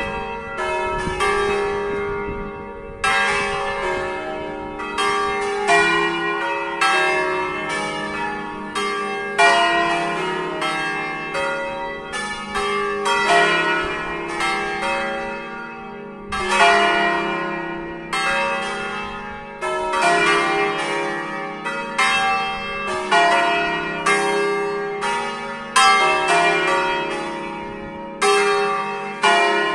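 A concerto of five swinging bronze church bells tuned to E♭, F, G, A♭ and B♭ (cast by Pruneri of Grosio and Ottolina of Seregno), struck by their clappers as they swing high. The strokes follow one another about twice a second, each ringing on under the next in a continuous peal.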